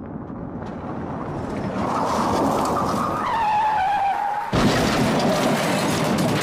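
Car crash sound effect: a vehicle approaches, growing louder, and its tyres squeal in a skid from about two seconds in, the squeal sliding down in pitch. About four and a half seconds in comes a sudden loud impact, followed by continuing crunching noise.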